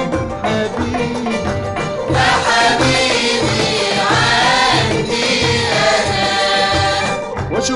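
An Egyptian shaabi song is playing: a steady percussion beat under a wavering melody line that is loudest through the middle.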